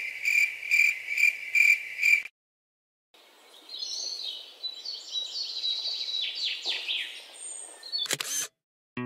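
A cricket chirping in even pulses, about two or three a second, stops a little over two seconds in. After a short silence, birds sing with quick chirps and sweeping whistled notes, cut off by a brief sharp sound near the end.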